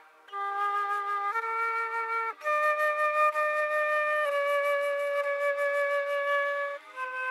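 A flute playing a slow melody of long held notes, each lasting one to two seconds, with a short breath pause near the end.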